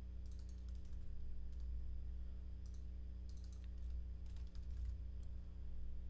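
Typing on a computer keyboard: short, irregular bursts of keystrokes with pauses between them, over a steady low hum.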